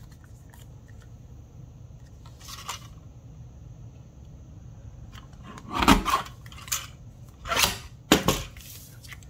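Handling of a plastic paper trimmer while a strip of cardstock is trimmed: a short click about two and a half seconds in, then a cluster of sharp knocks and clatters from about six seconds in as the trimmer is worked and pushed aside.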